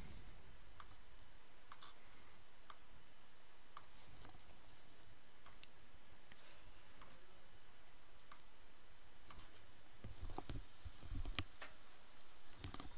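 Computer mouse buttons clicking about once a second, over a steady background hiss, with a few low thuds near the end.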